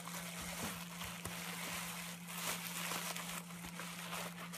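Faint rustling and crinkling of bubble wrap and packaging being handled and unwrapped, over a steady low hum.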